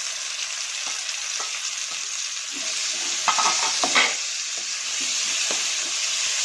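Sliced onions and tomato sizzling in coconut oil in a kadai, with a spatula stirring and scraping the pan in short strokes, loudest about three to four seconds in.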